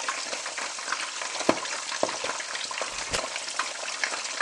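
Whole branzino frying in hot oil: a steady sizzle and crackle, broken by several louder pops of spitting oil.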